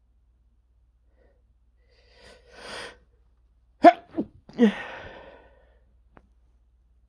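A man sneezing from allergies: a drawn-in breath about two seconds in, then a quick run of sneezes near the middle, the first the sharpest and loudest, the last voiced with a trailing breath out.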